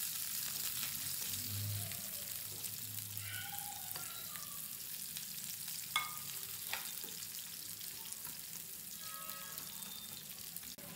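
Sliced onions and green chillies sizzling in hot oil in a non-stick pan while being stirred with a wooden spatula, with two light knocks about six seconds in.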